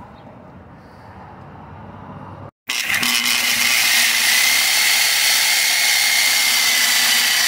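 Corded reciprocating saw (Sawzall) cutting through a rusted, seized steel shock-mount bolt. It starts abruptly about two and a half seconds in and runs loud and steady, with a high whine over the harsh sawing noise.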